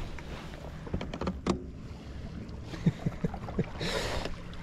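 Bow-mounted electric trolling motor running with a low steady hum on a bass boat, with small knocks of water and gear against the hull and a short hiss about four seconds in.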